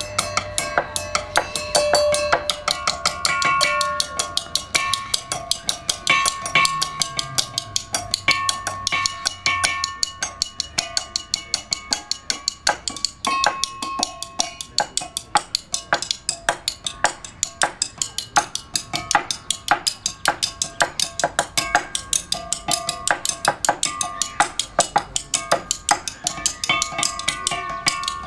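Homemade percussion instrument of pole sections on wooden trestles, struck by two players with ball-headed mallets: a fast, steady stream of strikes, each ringing briefly at its own pitch, several pitches interleaving.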